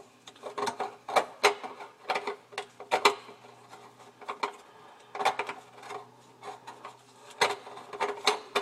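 Irregular light metallic clicks and scrapes as the basket strainer's gaskets and lock nut are worked by hand onto its threaded body under a sink.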